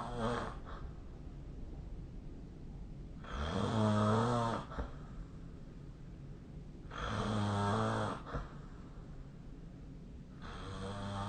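A sleeping person snoring: three snores about three and a half seconds apart, each low and buzzing and lasting about a second and a half, with quieter breathing between them.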